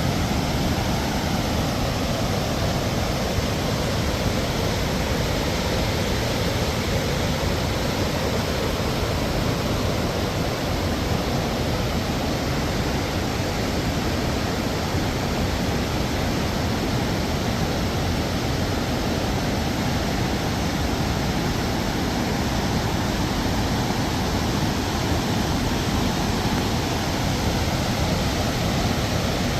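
Urubamba River rushing through rapids: a steady, loud roar of fast white water with no let-up.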